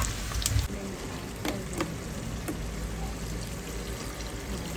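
Mutton cooking in a pot, a steady sizzling and bubbling, with a few light knocks scattered through the first half.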